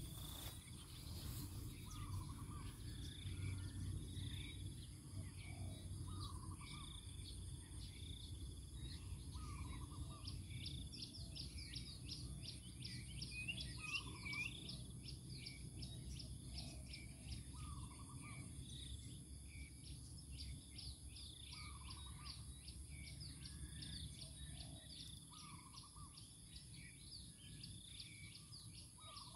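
Rural outdoor ambience: insects keep up a steady high whine while a bird repeats a short call about every two seconds, with a fast run of high chirps through the middle.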